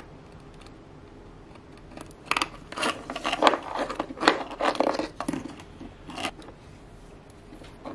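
Plastic jumper-wire connectors being handled and pushed onto the Arduino board's header pins: a run of scraping and clicking handling noises for about four seconds, starting about two seconds in.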